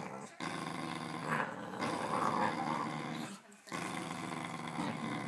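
A corgi growling in long, continuous growls over a toy snake, broken by two short pauses for breath, louder and harsher in the middle.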